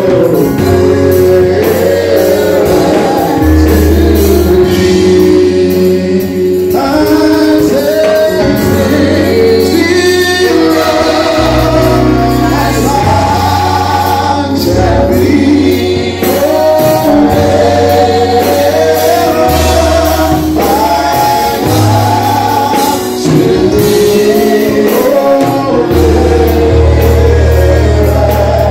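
Gospel song sung by a church congregation, led by a man singing into a microphone through a loudspeaker, over a bass line that steps from note to note every second or two.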